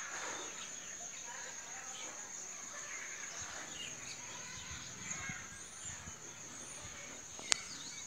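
Natural ambience: a steady high-pitched insect drone with scattered short bird chirps, and a single sharp click near the end.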